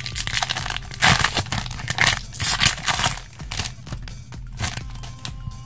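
Foil trading-card pack being torn open and crinkled by hand: dense crackling for about three seconds, then softer rustling.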